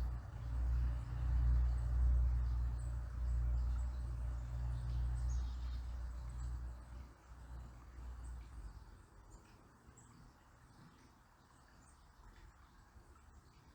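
Riverside ambience: a low rumble fades away over the first seven or eight seconds, leaving a faint hiss of flowing water and a few faint, high bird chirps.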